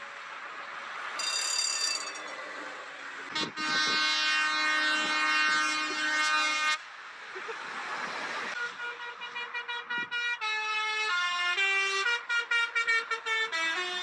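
Vehicle horns over passing highway traffic: a short horn blast about a second in, then a long, loud air-horn chord of several tones held for about three seconds. From about 9 s a musical horn plays a quick tune of changing notes.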